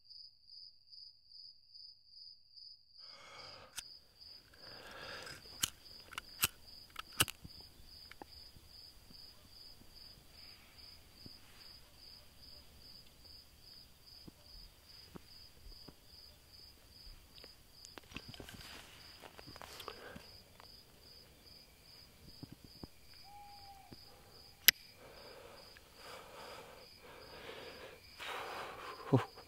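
Cricket chirping steadily in a high, even pulse about three times a second. A few sharp snaps cut through it, the loudest near the end.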